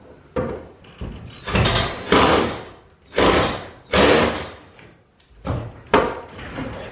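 Metal garage door hardware rattling and banging as it is worked by hand: about six loud clattering scrapes and knocks in a row.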